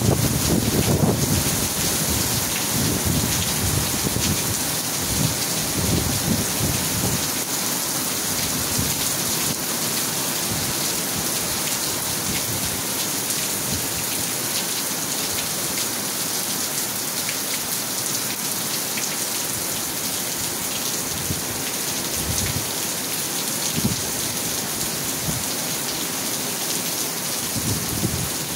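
Heavy rain pouring down onto pavement and a shelter roof, a steady dense hiss. Low rumbling comes through in the first several seconds, and briefly again later.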